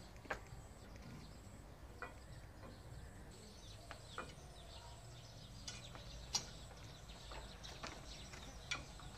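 Quiet background with scattered faint ticks and short chirps, one every second or so.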